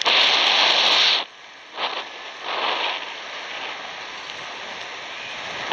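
Wind noise on the microphone of a paraglider in flight. It is loud for about the first second, surges again briefly around two and three seconds in, then settles to a steadier, quieter hiss.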